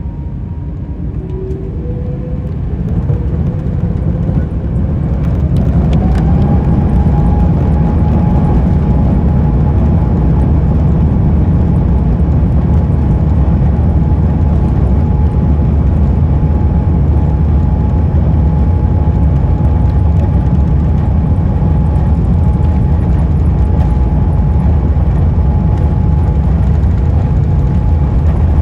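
Airbus A350-900's Rolls-Royce Trent XWB engines spooling up to takeoff thrust. A whine rises in pitch and loudness over the first six seconds, then holds steady over a loud low rumble for the rest of the takeoff run.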